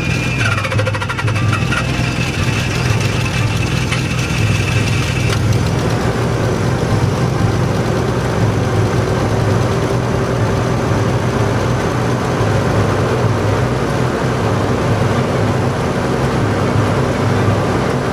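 Nissan Fairlady Z32's V6 engine idling steadily after starting up from winter storage. A thin high whine sits over it for the first five seconds or so, then stops.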